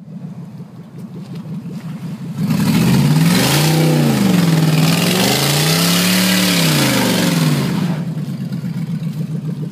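Dodge Dakota pickup's engine revved up and down twice as the truck works through deep mud, with a loud hiss of spinning tyres and flung mud from about two and a half seconds in until nearly eight seconds. Before and after, the engine runs at a lower, steady pitch.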